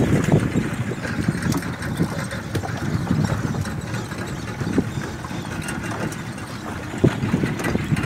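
Small fishing boat's outboard motor idling, over the noise of the choppy sea, with a couple of sharp knocks about five and seven seconds in.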